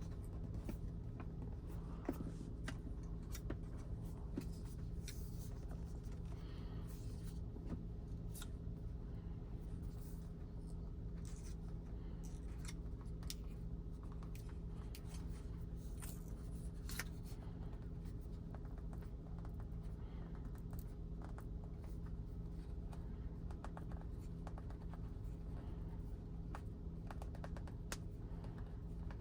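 Faint, scattered scratching and light clicks of a phone screen protector being rubbed and pressed to push trapped air bubbles out to the edge, over a steady low hum.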